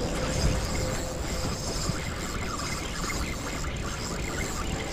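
Wind rumbling on a body-worn camera's microphone, with the sea washing against shore rocks underneath.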